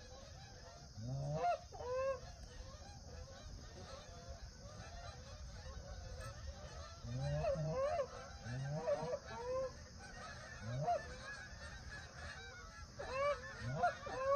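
A flock of Canada geese honking: clusters of several overlapping calls come every few seconds, with fainter honking in between.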